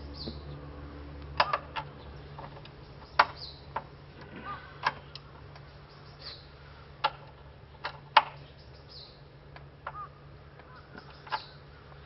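Sharp metallic clinks of hand tools, a socket and wrench being picked up and set down by a metal parts tray, about nine scattered knocks, a few ringing briefly. Birds chirp softly between them.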